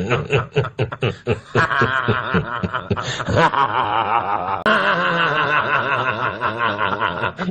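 People laughing hard: quick rapid ha-ha bursts in the first second and a half, then long wavering cackles. The sound changes abruptly about a second and a half in and again past the middle, as one laugh gives way to another.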